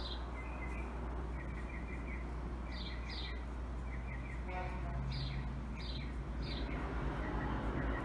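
Black felt-tip marker drawing short detail strokes on paper, heard as short high chirps and scratches in quick runs over a steady low hum.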